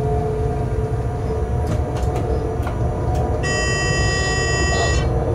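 Electric locomotive running light along the track, heard from the cab: a steady low rumble, with a humming tone that stops under a second in. A few sharp clicks come around two to three seconds in, then a shrill high tone for about a second and a half that cuts off suddenly near the end.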